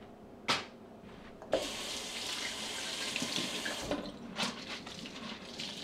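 Kitchen tap turned on, water running into the sink for a little over two seconds, then shut off. A light knock comes just before it and faint knocks just after.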